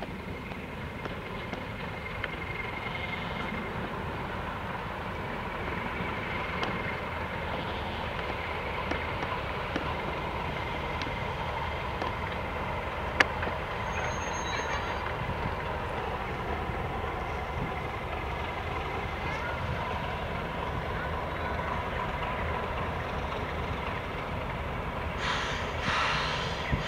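Class 31 diesel locomotive running past with a train of coaches: a steady engine drone with a faint whine. There is a single sharp click about halfway through and a short hiss near the end.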